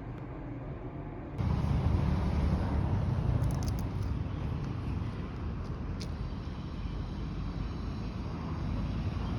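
Steady low rumble of a moving car and road traffic, cutting in abruptly about a second and a half in after quiet room tone, with a few faint clicks.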